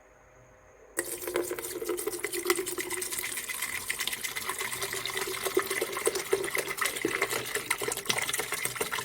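Water being poured into a 1.7-litre cordless electric kettle, starting suddenly about a second in and running steadily as the kettle fills.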